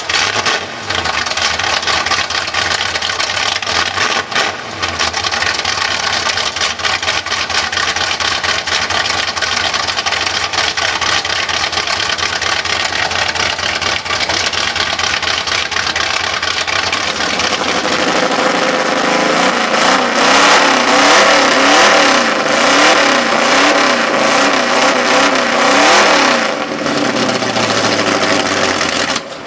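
Truck engine running steadily after a cold start, then revved up and down again and again in the second half, settling back down near the end.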